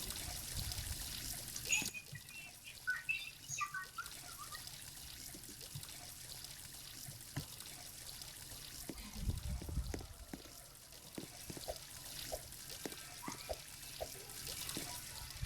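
Water running or pouring, which cuts off about two seconds in, followed by scattered light clicks and knocks.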